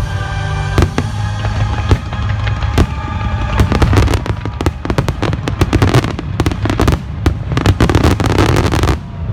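Fireworks going off over a music soundtrack: scattered single bangs at first, then about three and a half seconds in a dense run of rapid sharp cracks and crackles that stops abruptly near the end.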